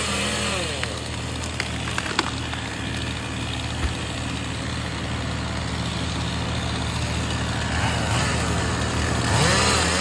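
Grapple truck's engine and hydraulic loader running steadily while the boom lifts and swings a tree top, the pitch rising and falling as the boom works at the start and again near the end. A few sharp cracks sound between one and two and a half seconds in.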